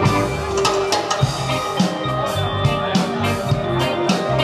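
Live rock band playing: electric guitar, bass guitar and drum kit, with sharp drum and cymbal hits at a steady beat under sustained guitar notes.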